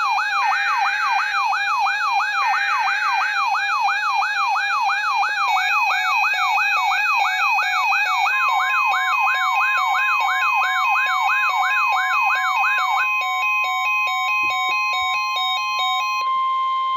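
NOAA Weather Radio alert sequence for a Special Marine Warning. It opens with two short buzzing data bursts of the SAME header, under a siren-like alarm that wails up and down about two and a half times a second until about 13 s in. From about 8 s in, the steady Weather Radio warning tone sounds and holds to the end.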